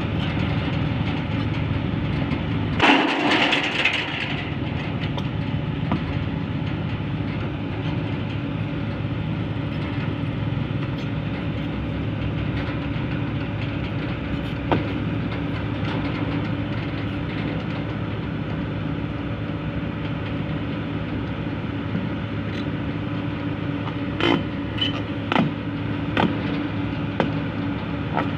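Diesel engine of a tracked excavator running steadily as the machine travels. There is a short noisy burst about three seconds in, and a few sharp metallic clanks near the end.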